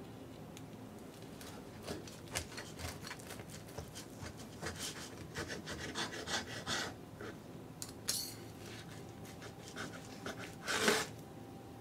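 Table knife sawing back and forth through a stack of bacon pancakes in short scratchy strokes, the blade scraping against the wooden tray beneath, with a louder scrape near the end.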